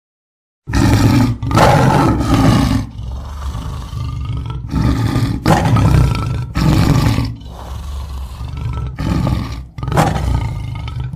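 A tiger roaring over and over, a string of loud roars broken by short gaps, starting suddenly after a moment of silence.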